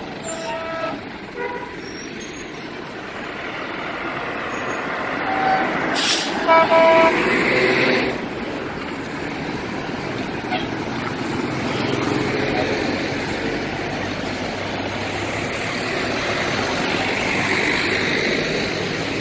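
A heavy vehicle's engine runs steadily. About six seconds in there is a sharp knock, then a brief pitched toot like a horn or warning beep.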